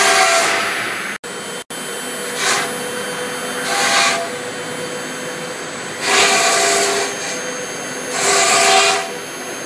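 Air-cooled CNC router spindle running at speed with a steady whine while its bit cuts a foam block, the hiss of cutting swelling into louder surges every couple of seconds.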